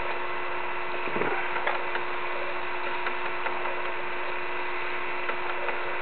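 The mechanism of a water-powered animated seagull sculpture ticking and clicking irregularly over a steady hiss and a low hum.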